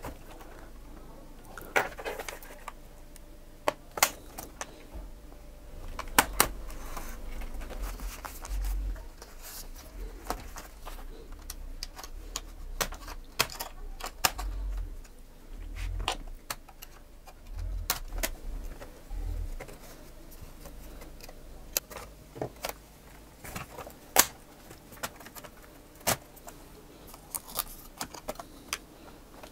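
Irregular sharp plastic clicks and snaps with low handling thuds: a Lenovo laptop's plastic case being turned over and its keyboard top cover pried off its clips.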